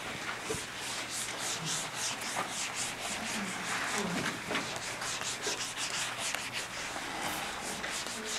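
Whiteboard eraser rubbing across a whiteboard in quick back-and-forth strokes, about four a second, wiping the board clean.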